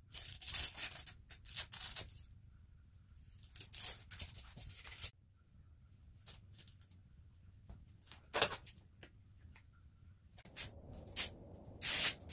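Rustling and tearing noises in several short bursts: clusters near the start and about four seconds in, a sharp one about eight seconds in, and the loudest near the end.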